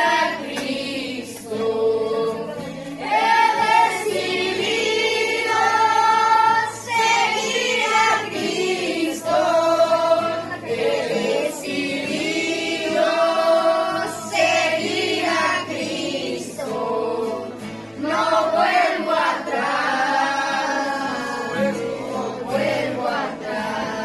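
A group of voices singing a worship song in sustained phrases, over steady low held accompaniment notes, fading near the end.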